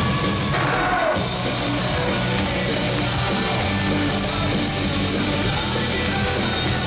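Loud rock-style music playing for a dance routine; it becomes fuller about a second in.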